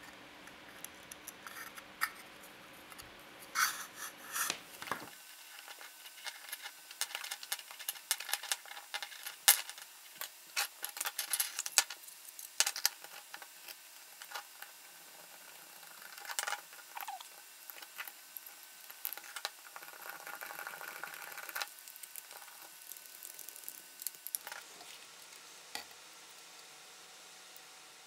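Hollow plastic drill battery casing and power cable being handled and fitted together: scattered small clicks, taps and rustles of plastic parts, loudest in a cluster near the middle.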